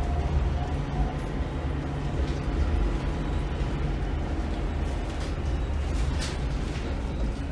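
Volvo B8RLE single-deck bus's engine and running gear heard from inside the saloon near the rear: a steady low drone as the bus runs. There is a brief click about six seconds in.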